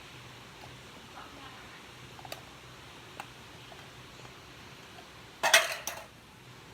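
Handling noises while unboxing a GAN speed cube: a few faint clicks, then a short loud clatter of hard plastic about five and a half seconds in.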